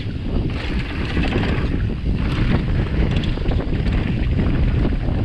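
Wind buffeting the microphone of an onboard camera on a mountain bike descending an enduro trail, over a loud, uneven rumble from the tyres and bike on rough ground.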